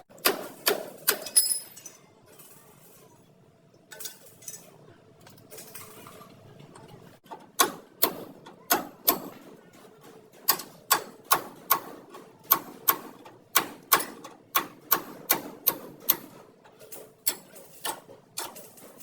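Hammer striking a car's sheet-metal body panel during denting work: a quick cluster of ringing blows, a few softer taps, then an even run of strikes about two a second.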